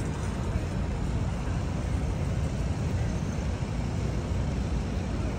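Steady low rumble of city street traffic mixed with wind buffeting the microphone.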